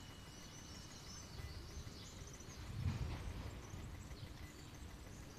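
Faint outdoor ambience with small birds chirping intermittently. A steady high tone stops about two seconds in, and a short low rumble comes about three seconds in.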